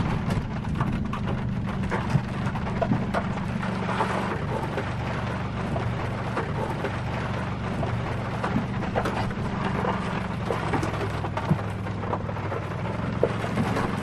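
Rain pattering on a truck's body and windshield, a dense spatter of small ticks, over the truck's engine running steadily underneath.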